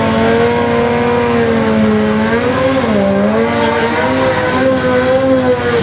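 Drag-racing motorcycle engine held at high, steady revs during a burnout, its pitch dipping briefly about three seconds in and climbing back.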